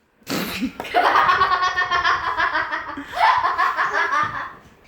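Girls laughing hard in long, rapid, pulsing runs of laughter, after a short noisy burst at the very start.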